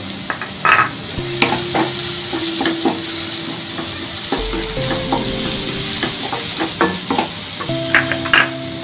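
Sliced onions, tomato and fresh curry leaves sizzling steadily in hot oil in a non-stick wok over a high flame. A wooden spatula stirs and scrapes them, making irregular clicks and knocks against the pan.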